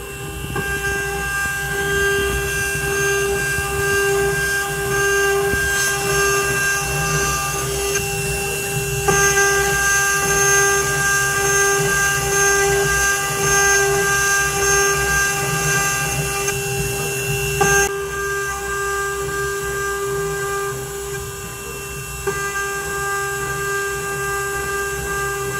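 CNC milling machine cutting aluminium: a steady whine made of several held tones over a hiss of cutting noise, changing a few times as the cut moves on.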